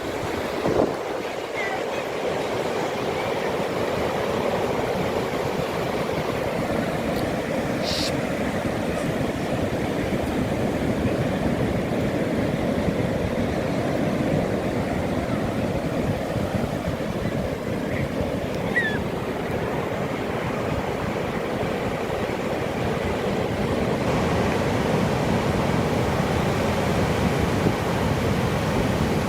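Calm sea waves washing in, a steady rushing wash that swells and eases slowly.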